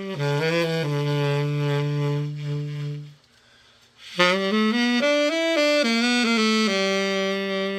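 Unaccompanied tenor saxophone, a The Martin Committee, being played: a quick run of notes settles on a long low held note, then after a pause of about a second a second phrase moves through several notes and ends on another long held note.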